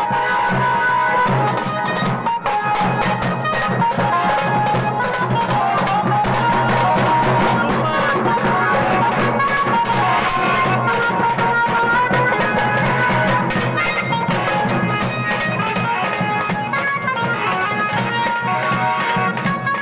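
Loud music blasting from a truck-mounted wall of horn loudspeakers: fast, dense drumming under a high, bright melody, with little deep bass.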